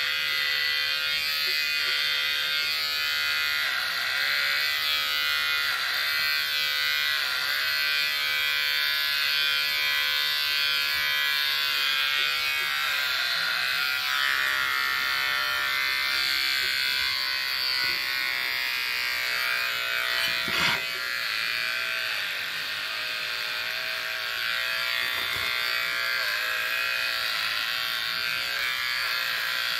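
Corded electric hair clipper buzzing steadily while cutting through long hair, its pitch dipping briefly every few seconds as the blades pass through the hair. A sharp tap about 21 seconds in.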